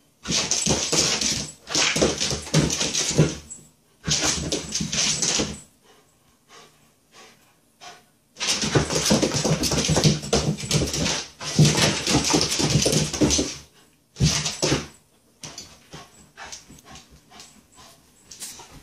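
Shiba Inu vocalizing in loud, noisy bursts of one to three seconds with short pauses between, whining and yelping while it spins chasing its tail. Only faint scattered ticks in the last few seconds.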